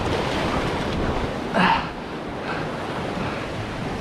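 Surf washing against the boulders of a rock jetty, a steady rushing with wind on the microphone; a brief louder sound breaks in about one and a half seconds in.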